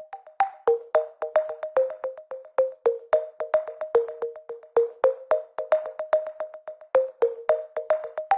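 Background music: a gentle electronic track of quick, evenly spaced plucked synth notes, several a second.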